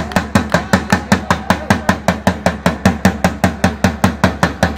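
A drum beaten in a fast, even rhythm, about six strokes a second.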